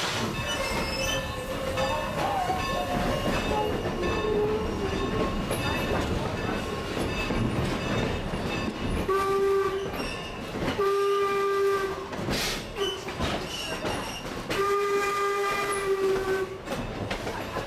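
Steam locomotive whistle sounding three blasts, the last one the longest, over the rumble and clatter of the passenger coach rolling on the rails.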